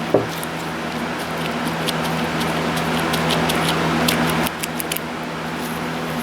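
A fan humming steadily, with small irregular sticky clicks and squelches of grease being forced by gloved hand into a wheel bearing.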